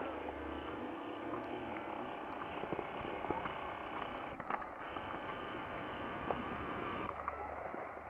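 Steady outdoor seaside background noise of wind and distant sea, with a low rumble at the start and again near the end, and a few faint clicks.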